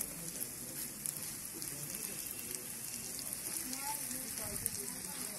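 Chapli kababs sizzling in shallow oil on a tawa: a steady crackling hiss with fine irregular spits of fat throughout.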